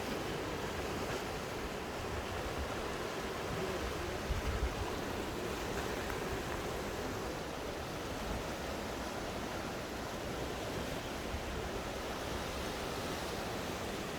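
Sea surf washing against the shore, a steady rushing noise, with a brief low rumble about four seconds in.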